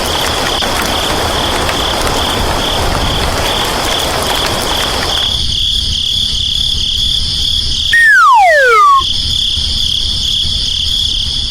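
Steady high insect chirring, like crickets, over a rushing noise that stops about five seconds in. About eight seconds in, one loud whistle-like tone slides steeply down in pitch over about a second.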